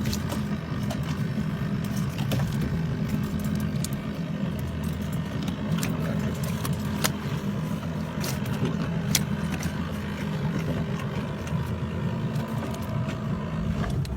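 A boat's motor running steadily with an even low hum, with scattered light clicks and knocks over it.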